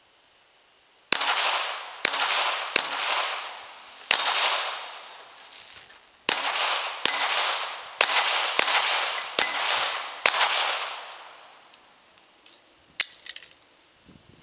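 Chiappa 1911-22 .22 LR pistol firing ten shots in two strings, four and then six, each crack followed by a long echo. One more sharp crack comes near the end.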